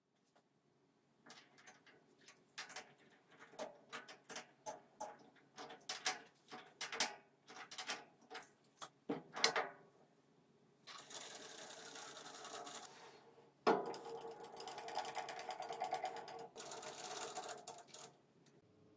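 Metal lathe parts being handled at the tool post: a run of uneven clicks and metallic clanks. About halfway through, a steady rasping mechanical noise takes over, broken once by a sharp knock.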